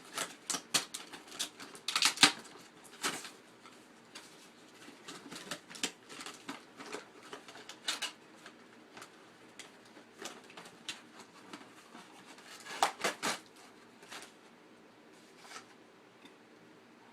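Irregular sharp clicks, crackles and rattles of a toy helicopter's box and packaging being opened by hand, loudest in a flurry about two seconds in and again about thirteen seconds in.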